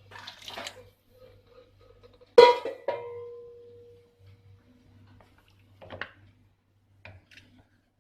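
Metal cookware clanking: a brief clatter, then a sharp metal strike about two and a half seconds in, quickly followed by a second, leaving a clear ringing tone that fades over about a second, and a lighter knock near six seconds.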